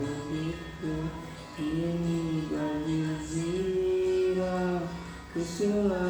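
Music: a song with a singer holding long notes that glide from one pitch to the next over a steady accompaniment.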